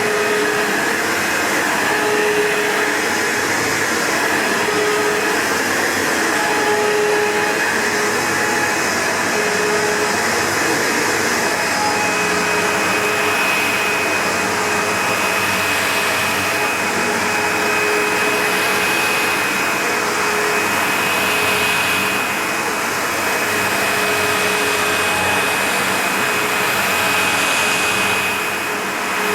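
Vax HF1400 carpet washer's vacuum motor running steadily with a whine, used over a short-pile carpet. A high whine comes in about twelve seconds in.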